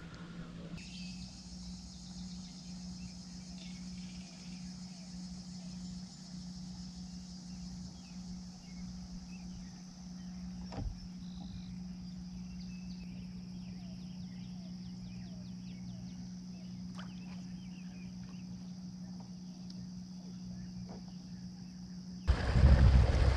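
Quiet boat ambience: a steady low hum under a faint high hiss, with a single knock about eleven seconds in. Near the end a much louder rush of wind-like noise starts suddenly.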